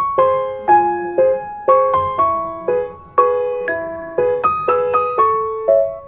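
Background music: a slow keyboard melody, likely piano, of single notes struck about twice a second, each one ringing and fading.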